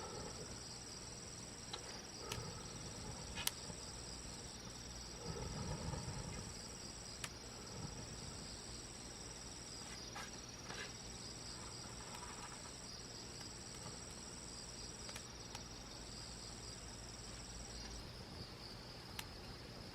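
Steady high-pitched trilling of crickets and other insects, with short breaks in the song. A few sharp pops come from a wood campfire, and there is a brief low rustle about five seconds in.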